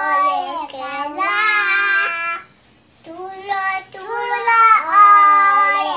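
Two young children singing a Nepali children's song together in high, held phrases, with a short break about two and a half seconds in before the next phrase.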